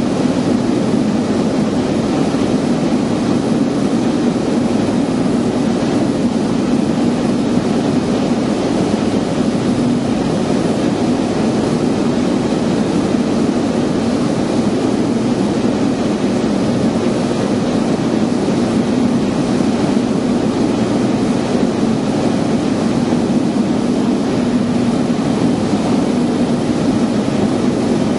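Piper Turbo Arrow's turbocharged six-cylinder engine and propeller running steadily in flight, heard from inside the cabin as an unchanging drone.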